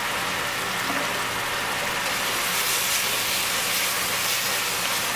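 Diced chicken and bacon frying in fat in a pot, a steady sizzling hiss, while they are stirred with a wooden spoon.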